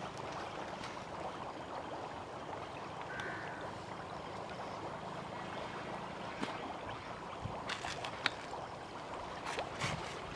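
Steady outdoor background noise, with a short high tone about three seconds in and a few faint clicks in the second half.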